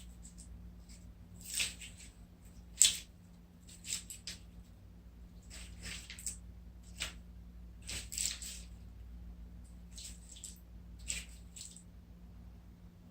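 Slime squeezed and kneaded by hand in water, giving about a dozen short wet squelches at irregular intervals. The loudest comes about three seconds in. It is foley meant to sound like lumps of dough being kneaded underwater.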